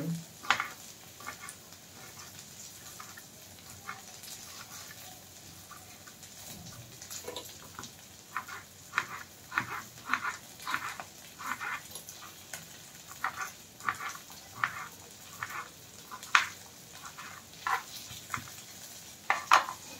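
A knife cutting a tomato on a wooden chopping board: irregular sharp taps, sparse at first and coming more often in the second half. Under them is a faint steady sizzle of okra frying in an aluminium kadhai.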